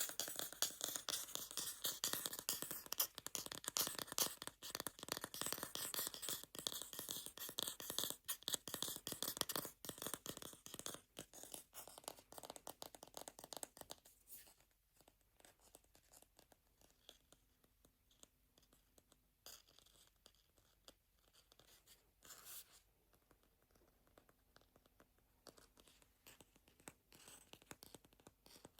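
Scratching on a wooden bowl, fast and dense at first, then dropping off about halfway to quieter, sparser scratches with a few single taps.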